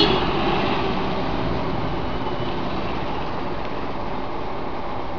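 Steady background noise: a low rumble with hiss and no distinct events, like distant traffic or room noise picked up by the camera microphone.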